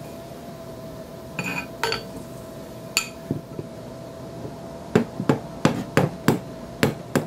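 A metal bar used as a slide hammer along an M14 barrel, tapping the operating rod guide back into position. A few light metallic clinks come first, then a quick run of about seven sharp taps near the end.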